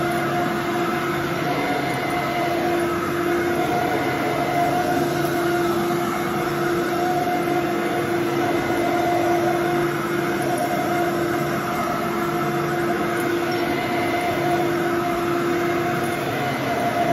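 Fantom upright vacuum cleaner running on carpet: a steady motor whine with airflow noise as it is pushed along.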